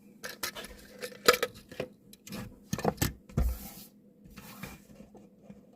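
Handling of a small diecast model car: a quick run of light clicks, taps and rustles, the sharpest about a second in, with a dull thump about three and a half seconds in.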